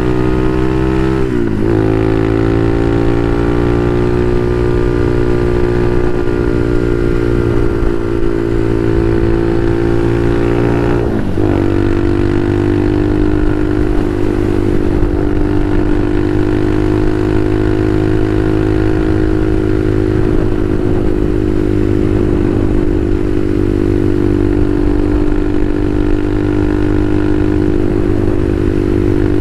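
Bashan Motomax 250 supermoto engine running under way: its pitch climbs, drops sharply at a gear change about a second and a half in and again about 11 seconds in, then holds at a steady cruising pitch.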